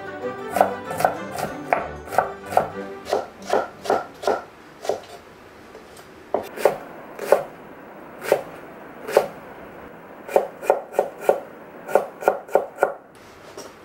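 Kitchen knife chopping vegetables on a wooden cutting board: a string of sharp knocks as the blade strikes the board, about two to three a second, pausing briefly about five seconds in before going on more unevenly.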